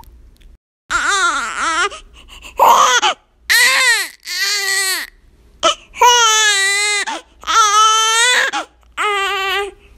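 Infant crying: after a moment of silence, a string of about seven wails, each a second or less, with short gasps between them. The later wails are the longest and hold a steadier pitch.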